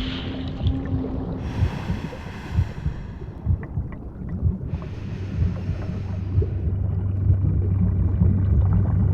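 Underwater ocean ambience: a constant low rumble with uneven low thumps, broken by two hissing bursts lasting a second or two each, about one and a half and five seconds in.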